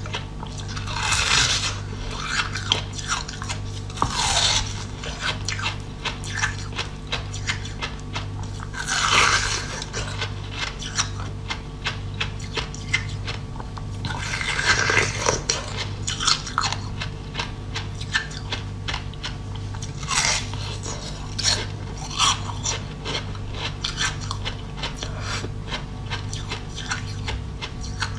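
A block of frozen basil-seed ice being bitten and crunched close to the microphone: constant small crackles and clicks of the ice, with several louder bites spread through.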